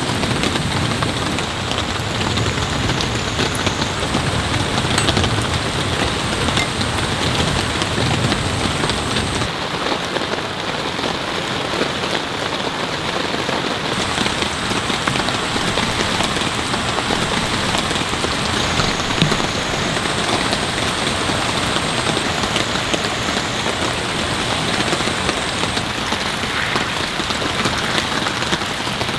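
Heavy rain falling steadily, a dense hiss with many individual drops striking a surface close by.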